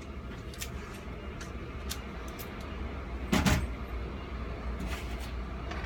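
Keys and a padlock being handled: scattered small metal clicks, with one louder click or knock about three and a half seconds in, over a steady low hum.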